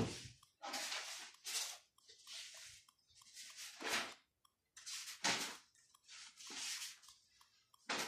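A series of short rustling and scraping sounds, about one or two a second, from someone handling objects.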